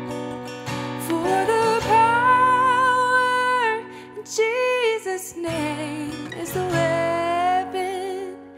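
Christian song: a woman singing long held notes with vibrato over acoustic guitar chords.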